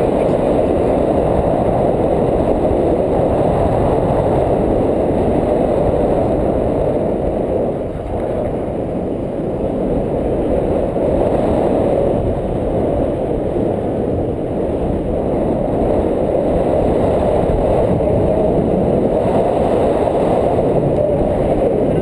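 Wind rushing over the microphone during a tandem paraglider flight: a steady, loud, low rumble that dips briefly about eight seconds in.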